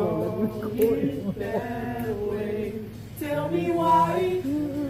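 A group of young voices, mostly men, singing together unaccompanied, with long held notes that swell louder a little past the middle.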